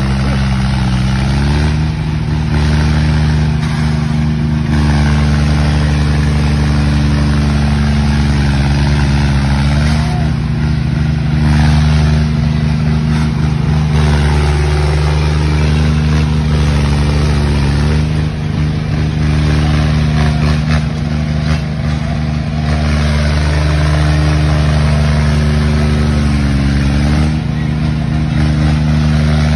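Diesel engines of two John Deere tractors running hard under heavy load as they pull against each other in a tug-of-war. Their pitch sags and recovers every few seconds as the rear tyres dig in and the load changes.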